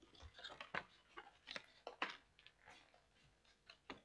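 Faint, scattered clicks and rustles of a cardboard retail box and its cardboard insert being handled and pulled apart.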